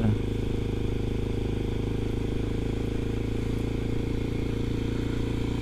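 Kawasaki Ninja 250 FI parallel-twin engine running at a steady cruising speed, its note holding level, heard from the rider's helmet.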